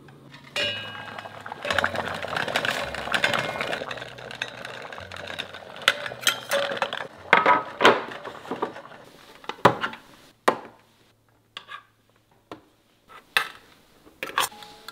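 Stainless steel food containers and their flat stainless lids clinking and clattering as they are handled and set down, a series of separate sharp clinks in the second half. Before that comes a few seconds of dense crackly, rustling noise.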